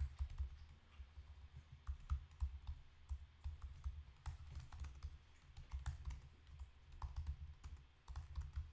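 Typing on a computer keyboard: irregular keystrokes, each a sharp click with a dull low knock, coming in short runs with brief pauses.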